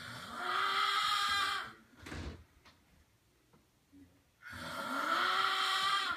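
A man snoring: two long, rasping snores about three seconds apart, each lasting under two seconds, with a pitch that rises and then holds. A shorter, weaker breath sound falls between them.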